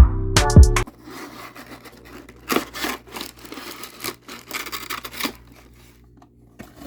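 A music sting ends about a second in, then cardboard and plastic action-figure packaging is rubbed and scraped in a run of uneven, scratchy strokes as the box is opened, dying away near the end.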